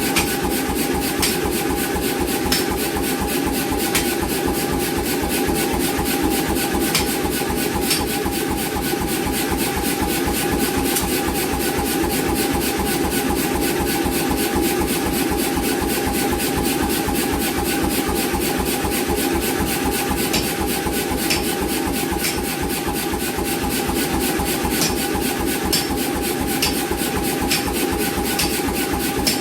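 88 lb C41 power hammer running steadily, its ram striking in a fast, even beat of several blows a second over a constant motor hum.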